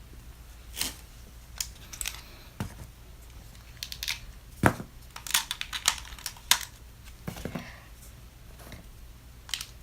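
Plastic doll and outfit pieces being handled and swapped, with scattered clicks and short rustles as the snap-on clothes come off and go on; one sharper click about halfway through.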